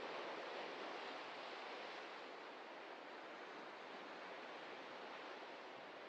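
Ocean surf breaking and washing over a rocky shoreline: a steady rush of water that eases slightly over the first few seconds.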